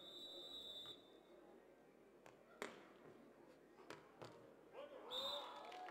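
Referee's whistle, then a few sharp hand-on-ball hits of a beach volleyball rally, the loudest about two and a half seconds in. A second short whistle sounds near the end as voices rise.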